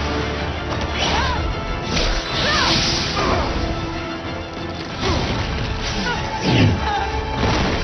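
Action-film sound mix: a dramatic music score under a run of whooshes, smashes and hits, with gliding, falling sweeps near the end.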